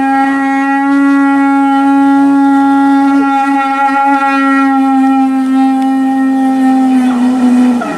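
Lips buzzed into a cardboard plastic-wrap tube played like a makeshift trumpet: one long held note, steady in pitch, sagging slightly just before it stops near the end.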